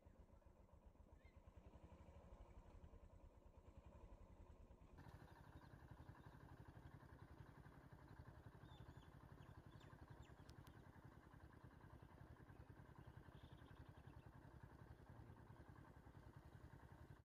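Faint, steady running of a vehicle engine, with fast, even pulsing, a little fuller from about five seconds in.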